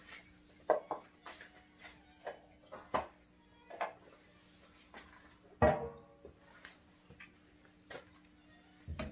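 Scattered clinks and knocks of small hardware being handled: a Shop-Vac's metal axle, washers and hairpin clips, and plastic wheel parts. There is a louder ringing clatter about halfway through, over a faint steady hum.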